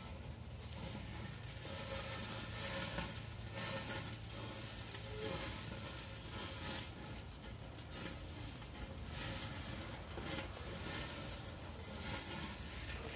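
Food sizzling on a barbecue grill: a continuous hiss that swells and eases.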